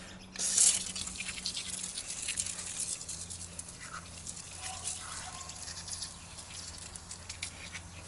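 Aerosol can of rubber seal conditioner spraying through its straw nozzle onto a roof vent's rubber lid seal: a sharp hiss about half a second in, then quieter spurts and crackles as it is worked along the seal.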